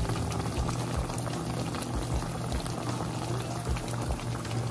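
Pot of Dungeness crabs boiling hard in seasoned broth, a steady, dense bubbling.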